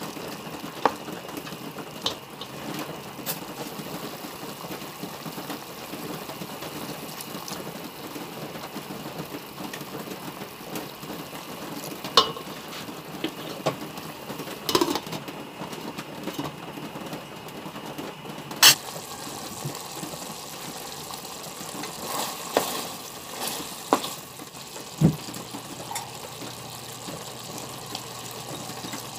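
Pork pieces cooking in soy-vinegar sauce in a pot, a steady sizzle, with scattered sharp knocks of a spoon against the pot, the loudest about two-thirds in.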